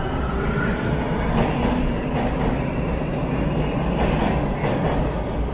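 A Toronto subway train running in the station: a steady, loud rolling noise of steel wheels on track.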